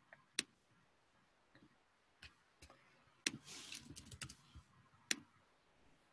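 Faint, isolated computer clicks, with a short burst of laptop keyboard typing about three seconds in.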